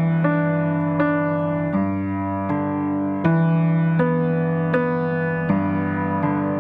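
Background music: slow keyboard or piano notes and sustained chords, a new note struck about every three-quarters of a second.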